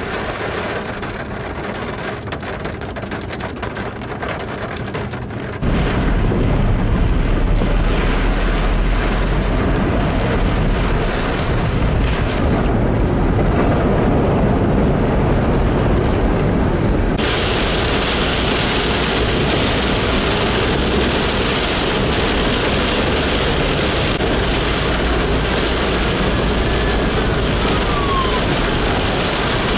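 Rain on a car's roof and windshield, heard from inside the vehicle: a lighter patter of separate drops at first, then abrupt cuts to heavy, loud downpour about six seconds in and again, hissier, about seventeen seconds in.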